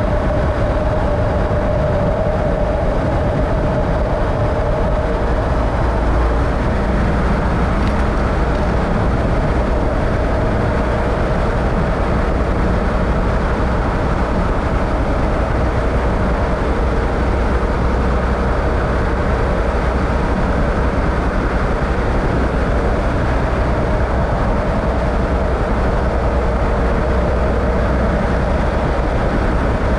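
A vehicle driving: steady engine and road noise.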